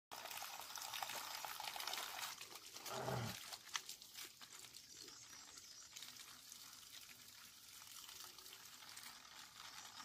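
Faint trickle of spring water running from a plastic pipe outlet. In the first couple of seconds there are crunching steps on loose stones, and about three seconds in there is a short low voice-like sound followed by a sharp click.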